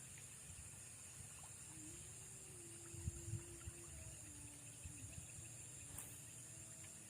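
Faint outdoor ambience: a steady high-pitched hum, with a few soft thumps about three seconds in and a single click near the end.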